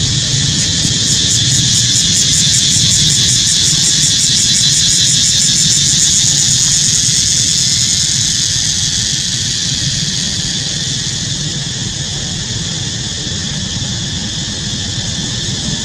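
A loud, steady high-pitched insect chorus with a rapid pulse, easing a little after about ten seconds, over a low rumble.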